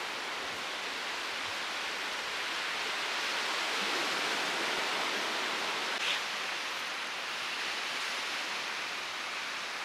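Steady wash of sea surf on a sandy beach, swelling slightly around the middle.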